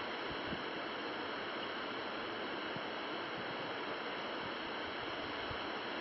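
Forest waterfall: a steady, even rush of falling water.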